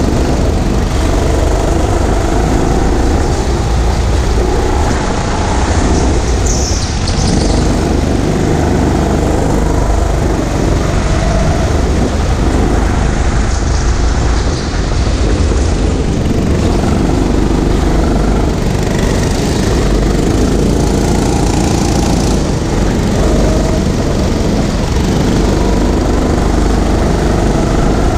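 Go-kart running at speed, heard from the driver's seat: a loud, steady motor and tyre noise with low rumble on the microphone, with no break or change.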